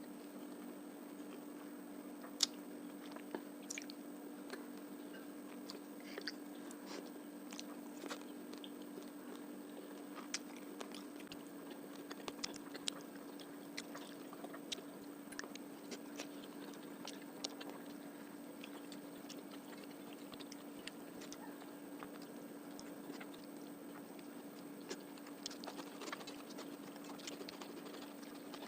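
Close-miked chewing and biting of a meal of rice and fish curry, with scattered sharp crunches and wet mouth clicks. A steady low hum runs underneath.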